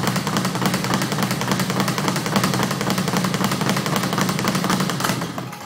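Speed bag being punched in a steady, rapid rhythm, the bag drumming against its wooden rebound platform; the drumming stops about five seconds in.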